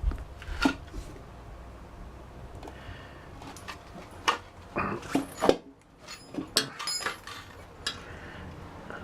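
Short knocks and scrapes from handling a motorcycle inner tube and tyre on the wheel rim while the tube's valve is worked towards the valve hole: one knock about a second in, then a cluster of clicks and rubs from about four to eight seconds in.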